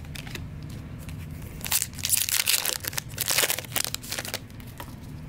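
Magic: The Gathering draft booster pack's foil wrapper being crinkled and torn open. The crackly rustle is densest from just under two seconds in to about four seconds in, with lighter handling rustle around it.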